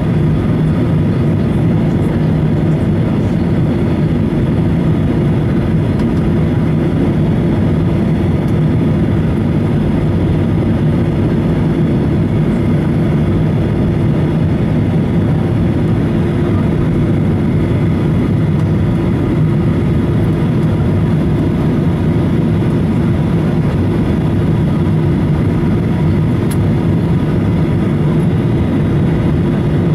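Steady cabin drone inside a Boeing 737-800 on approach: the hum of its CFM56-7B turbofan engines mixed with rushing airflow, heard from a window seat just ahead of the wing.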